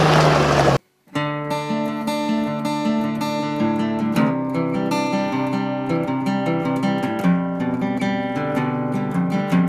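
A utility vehicle's engine running for under a second, cut off abruptly, then strummed acoustic guitar music.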